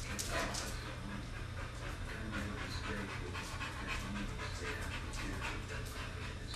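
American bulldog panting steadily, with a low steady hum underneath.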